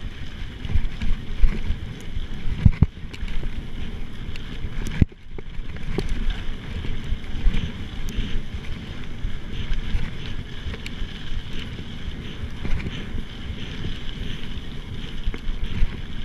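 Mountain bike ridden over a dirt and gravel track: tyre rumble with frequent knocks and rattles from the bike, mixed with wind buffeting a chest-mounted action camera's microphone. The sound drops out for a moment about five seconds in.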